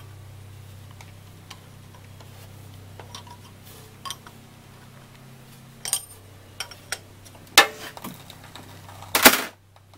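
A small wrench clicking and clinking against a brass hose fitting as it is loosened and unscrewed from an engine's oil pressure switch port. Scattered light ticks, then two louder metallic knocks near the end.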